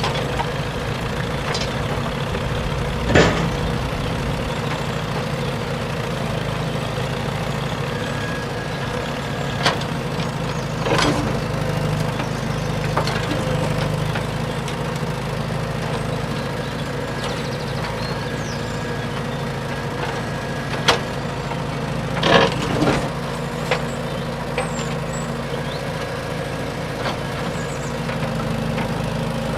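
The mini tractor's small motor runs steadily. A few sharp knocks and clatters sound through it, the loudest about three seconds in and a cluster around twenty-two seconds in.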